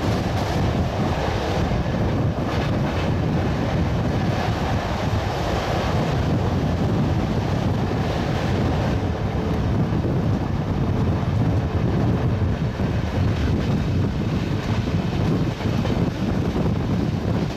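Superfast express train with LHB coaches running through at speed: a steady, loud rumble and rush of the passing rake, with wind buffeting the microphone.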